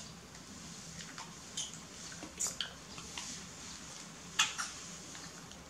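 Plastic baby bottles being handled and sucked on by two baby monkeys: a few light clicks and taps, the loudest about four and a half seconds in.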